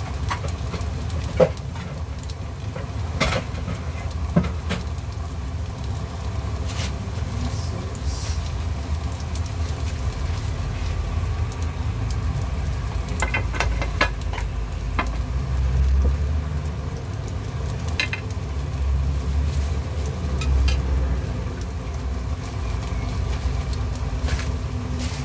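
Crabmeat patties sizzling in hot oil in a nonstick frying pan, over a steady low hum, with scattered sharp clinks of a plate and knife being handled.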